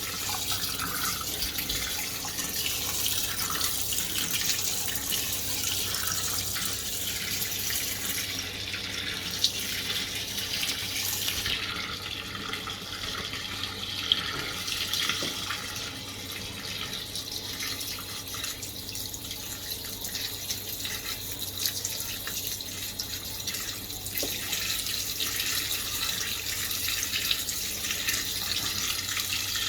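Fisher & Paykel MW511 washing machine filling, water running steadily into the tub, with a couple of faint clicks around ten and fourteen seconds in.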